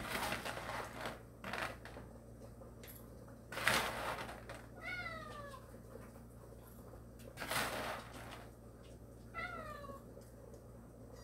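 A hungry cat meows twice for food, each a short call falling in pitch. Between the meows, dry kibble is scooped and poured into a small bowl, with brief rattling bursts.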